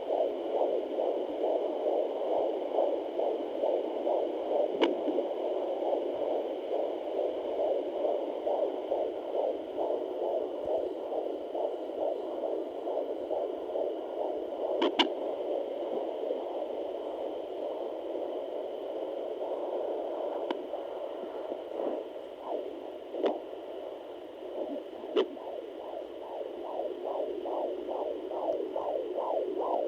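A Sonoline home fetal Doppler plays a baby's heartbeat through its speaker at 21 weeks of pregnancy, as fast, even whooshing pulses a little over two a second (around 138 beats a minute) under a faint steady hum. A few sharp clicks cut in.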